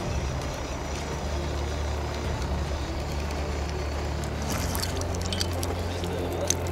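Steady low hum of a fishing boat's engine running, with a few light clicks over the last couple of seconds.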